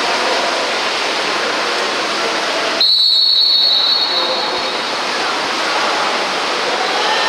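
Referee's whistle blown in one long, steady, high blast of about two seconds, starting about three seconds in, over the steady background noise of the pool during the water polo match.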